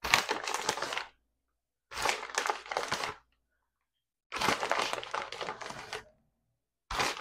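Plastic shredded-cheese bag crinkling and rustling as a hand reaches in and pulls out cheese, in four bursts of about a second each with silence between.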